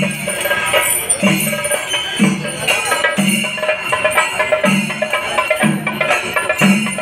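Music with a steady beat: a low note about once a second under higher melodic lines.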